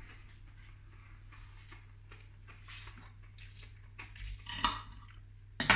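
Cutlery scraping and clinking on a plate, a few louder scrapes late on and a sharp clink near the end.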